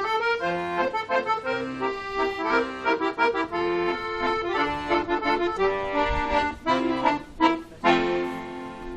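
Accordion playing the closing instrumental bars of a song after the last sung verse: a quick melody over chords, ending on a held final chord near the end.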